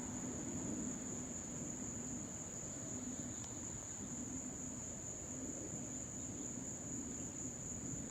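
Crickets trilling in one steady, unbroken high note, over a low, even rumble from the Airbus A330 jet airliner's engines, distant.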